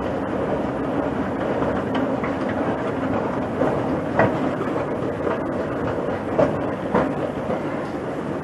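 Loud, steady rumble of an underground metro station, with a few sharp knocks, the clearest about four and about seven seconds in.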